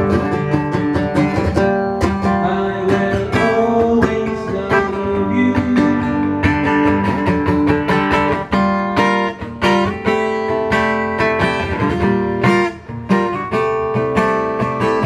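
Acoustic guitar strummed in a steady rhythm, chord after chord with no singing.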